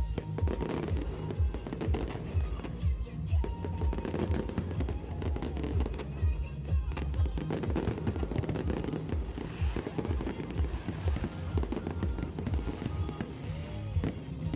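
Fireworks display: a rapid, continuous barrage of bangs and crackles over a low rumble, with music playing underneath.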